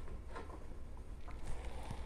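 Faint light clicks and scrapes of a brass bugle tube being handled and slid onto a steel mandrel clamped in a bench vise, to straighten its bent receiver, over a low steady hum.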